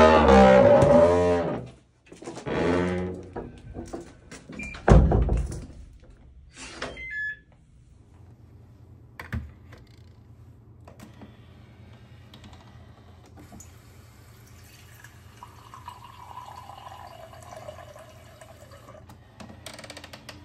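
Heavy wooden door creaking on its hinges as it swings open, creaking again, then closing with a heavy thunk about five seconds in. Later a hot-water dispenser pours into a ceramic mug with a faint hiss and a slowly falling tone as the mug fills.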